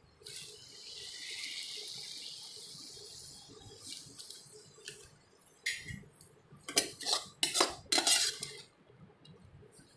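Tomatoes and onions sizzling in oil in a nonstick pan, a steady hiss that fades over the first few seconds. Past the middle, a spoon scrapes and knocks against the pan several times as the vegetables are stirred.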